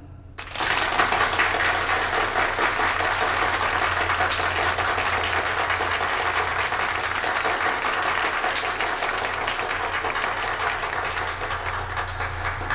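A small audience applauding, starting abruptly about half a second in and keeping up a steady patter of hand claps that eases slightly near the end.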